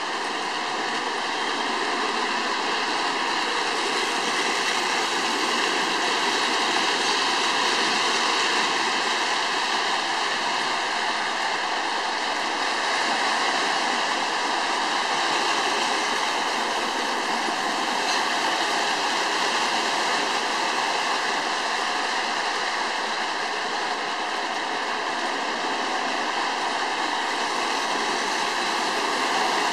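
Electric model train running around its metal track, a steady whirring rumble of motor and wheels.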